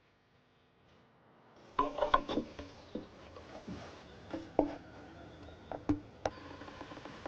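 After a brief silence, a series of irregular light knocks and clicks of wooden pieces being handled, some with a short ringing tone.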